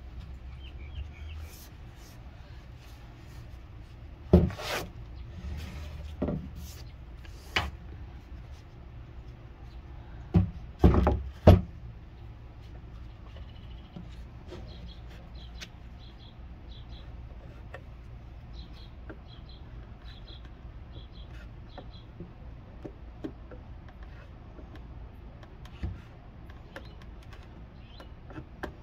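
Scattered knocks and clicks of wood and tools being handled on a workbench, loudest in a quick cluster about eleven seconds in, over a low steady hum. Faint high chirps repeat through the middle.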